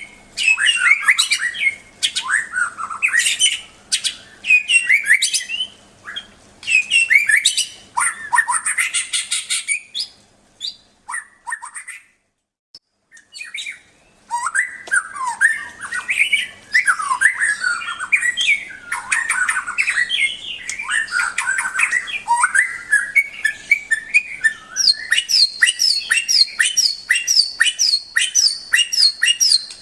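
Murai (a Copsychus songbird) singing a loud, varied song of whistled phrases and rapid trills. It breaks off for about two seconds midway, then sings almost without pause and ends with a fast run of repeated high notes.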